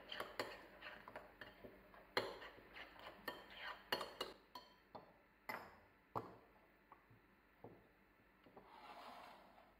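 Metal spoon stirring and scraping a thick tomato-paste sauce in a ceramic bowl: faint, irregular clinks and taps against the bowl, thinning out after about six seconds.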